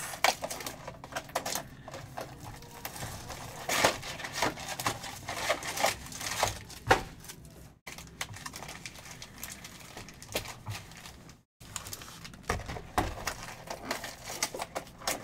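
Trading card packs being opened and the cards handled: plastic wrappers crinkling and tearing, with irregular clicks and rustles of cards.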